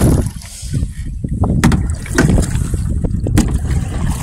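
Small paddled boat on open water: water sloshing and splashing around the hull, with several sharp knocks from the paddles. A heavy low rumble of wind on the microphone runs underneath.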